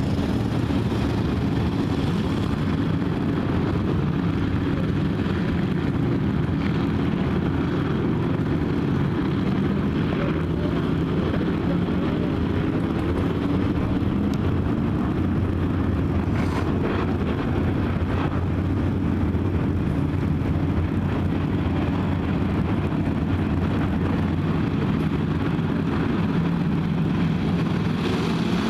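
A field of IMCA hobby stock race cars' V8 engines running together in a pack at an even pace, a steady, continuous drone.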